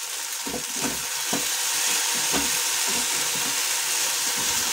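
Sabudana khichdi frying in a nonstick pan with a steady sizzle while a wooden spatula stirs and roasts it, knocking and scraping irregularly against the pan; the frying gets a little louder about a second and a half in.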